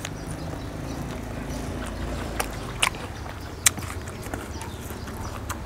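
A person chewing crunchy star gooseberry fruit: a few sharp crunches over a low steady rumble.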